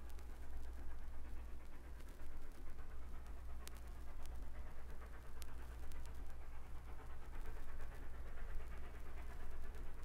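Steam locomotive running, its steam exhaust hissing unevenly over a steady low rumble, with a couple of sharp clicks from the vinyl record.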